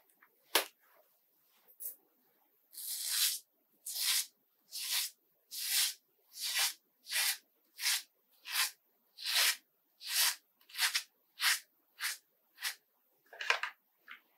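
Shaving lather being brushed onto a partly shaved scalp: about fifteen scratchy, hissing strokes in an even rhythm of roughly one and a half a second, beginning a few seconds in. A couple of sharp clicks come first.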